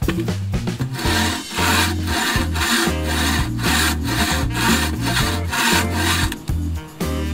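Bow saw cutting through a wooden log in quick, even back-and-forth strokes, about two to three a second, over background music. The strokes stop shortly before the end.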